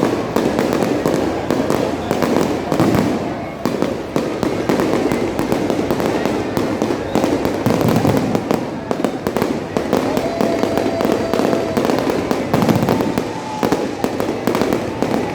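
Aerial fireworks going off in a dense, continuous barrage of rapid bangs and crackles, with crowd noise underneath and a few faint whistles in the second half.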